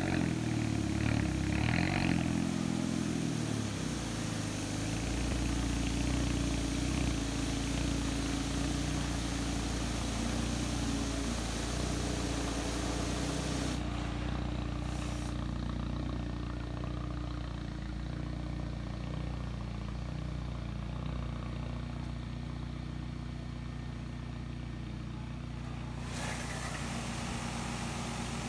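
Sino Star S9 touchless car wash machine running on a car, a steady mechanical hum with the hiss of its spray. The high hiss thins out for a stretch in the middle.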